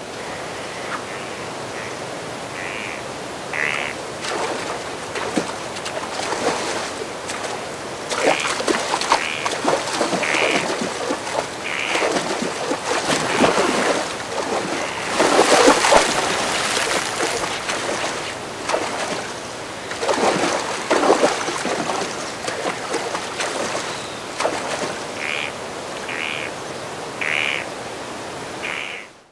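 Shallow river water running steadily, with splashing that gets heavier in the middle and again a little later. Short bird calls recur through it, in clusters near the start and near the end.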